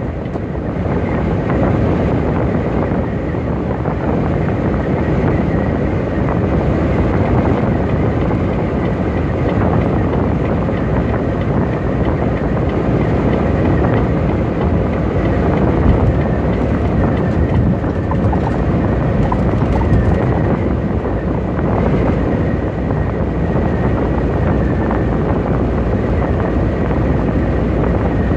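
Semi truck cruising at highway speed, heard from inside the cab: a loud, steady drone of engine and road noise, with a faint high whine running through it.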